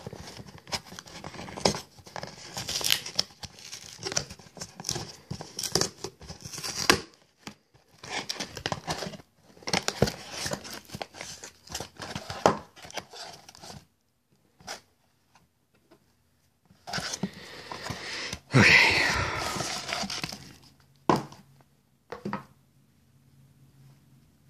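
Cardboard Priority Mail flat rate box being torn open by hand: the taped flap and cardboard rip and crackle in irregular bursts, with a short pause in the middle. Later comes a louder rustle and scrape of paper and a padded mailer being handled.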